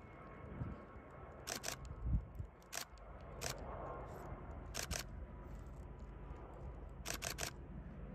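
Camera shutter clicks, single and in quick pairs and a triple, about nine in all, over a steady low rumble.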